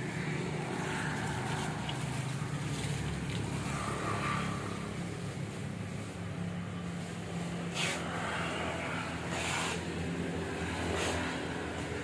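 A steady low motor hum, with a few short hissy swishes about eight, nine and a half and eleven seconds in.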